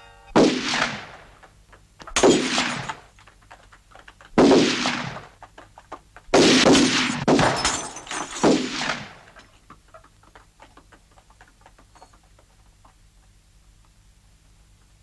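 Rifle gunfire: about six single shots a second or two apart, each with an echoing tail, with faint clattering between them; the shooting stops after about nine seconds.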